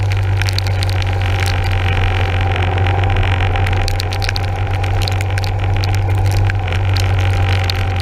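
Yamaha SR400's air-cooled single-cylinder engine running steadily while the motorcycle rides along a wet road, heard with a hiss of wind and tyre spray and scattered sharp clicks.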